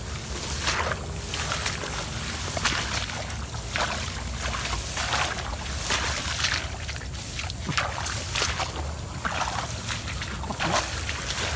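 Footsteps swishing through tall grass in irregular strokes, with a steady low rumble of wind on the microphone.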